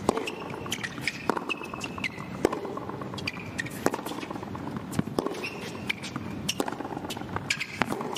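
Tennis rally on a hard court: a ball struck by the rackets about seven times, roughly once every second and a quarter, with fainter ball bounces between hits and short high squeaks of shoes on the court.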